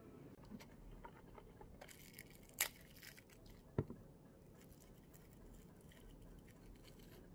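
Faint crinkling and rustling of a plastic straw wrapper being torn open and pulled off by hand, with two sharp clicks about a second apart near the middle.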